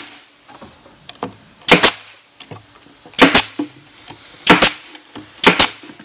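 Porter-Cable pneumatic brad nailer firing four times, a second or so apart, each shot a sharp double crack as it drives 1¼-inch nails through a wooden cleat into a cabinet.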